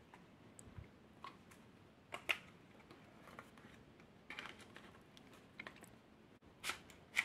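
Faint, scattered plastic clicks and knocks as a drone's flight battery is handled and slid into the battery bay in its body, with louder clicks about two seconds in and near the end.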